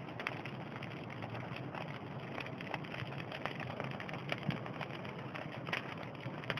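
Campfire burning as it catches: a steady hiss with scattered crackles and pops.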